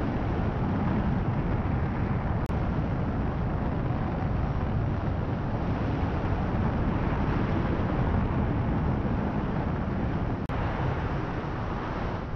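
Steady rushing wind over the microphone of a glider-mounted camera in flight, heaviest in the low rumble.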